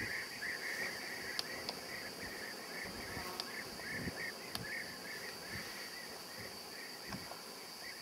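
European bee-eaters calling: a continuous stream of short, rolling chirps repeating several times a second, over a steady high hiss and a low gusty rumble of wind on the microphone.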